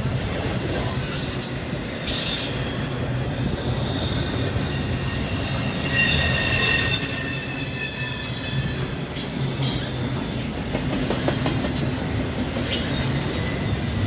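Norfolk Southern train rolling past with a steady low rumble and a few sharp clacks, its wheels squealing in a high, ringing screech that builds to its loudest about halfway through and then fades away.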